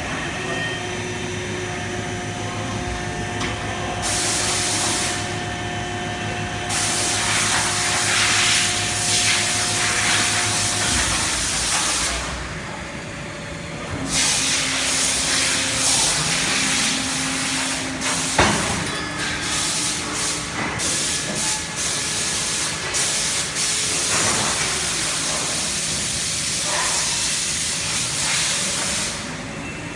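Polyurethane foam-moulding line running: a steady machinery hum with long stretches of loud hissing that start and stop. There is a short rising whine a little past halfway, then one sharp knock.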